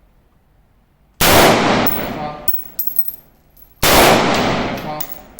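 Two single shots from an AR-15 rifle in .223, about two and a half seconds apart, each followed by a long echoing tail. A faint ringing tone comes about a second after each shot.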